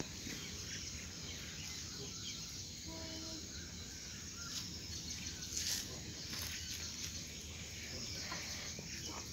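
Faint outdoor yard ambience: a steady low hiss with scattered faint clicks, and a brief faint tone about three seconds in.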